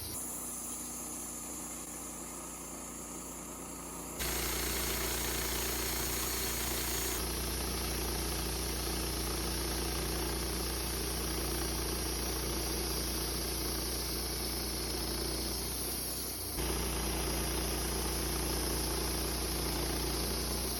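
Wood-Mizer LT15 portable bandsaw mill running, its engine droning steadily while the band blade saws through a cedar log. The sound changes abruptly about four seconds in and again near the end.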